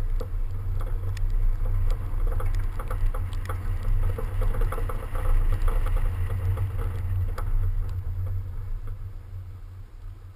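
Car driving on a snow-covered course, heard through a camera mounted outside on the door: a heavy low rumble of wind and road noise with scattered sharp ticks, fading away over the last couple of seconds as the car slows.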